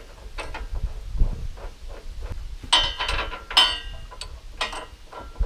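Metal hardware clinking against the steel gooseneck hitch frame while it is bolted to the truck's frame rails: a few sharp, briefly ringing clinks, loudest in a cluster around the middle, with a couple more near the end.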